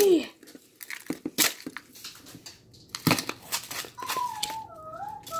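Thin plastic wrapping being torn and crinkled as it is peeled off a block of ice, in irregular crackles and rustles. A faint wavering whine joins near the end.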